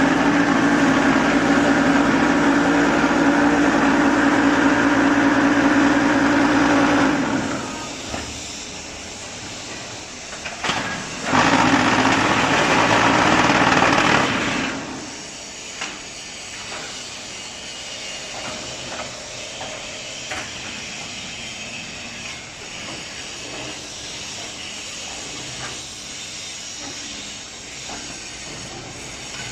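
Concrete block machine's vibration table running with a loud, steady humming rattle for about seven seconds, stopping, then running again for about three seconds, followed by quieter machine background.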